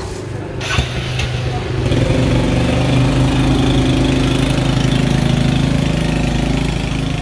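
Small motorbike engine running as the bike pulls away, with a couple of clicks about a second in and the engine growing louder about two seconds in, then holding a steady note.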